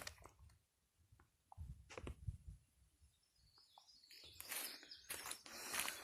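Footsteps crunching on a dry forest trail, loudest near the end, with a few faint short bird chirps in the quieter stretch.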